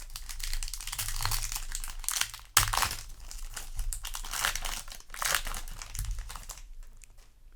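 Foil booster-pack wrapper crinkling as it is torn open by hand, with a sudden loud crackle about two and a half seconds in; the crinkling dies away near the end.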